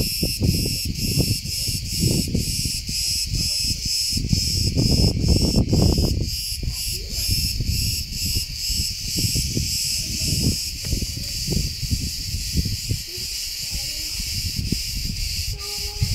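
A chorus of cicadas buzzing in high, even pulses of about three a second, blurring into a continuous buzz after about ten seconds. Wind rumbles on the microphone underneath, strongest in the first half.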